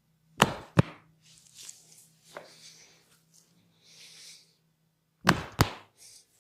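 Percussive massage strokes: a pair of sharp hand slaps on the body about half a second in and another pair near the end, with soft rubbing of hands on skin between them.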